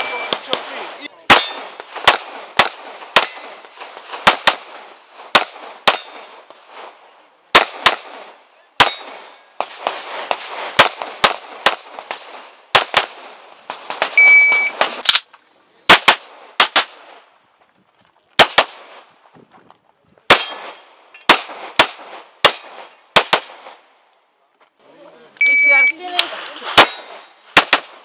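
A semi-automatic pistol fired in rapid strings, roughly three dozen shots, mostly in quick pairs, with short pauses between target arrays; each crack is followed by a brief echo. Short high electronic beeps of a shot timer sound three times.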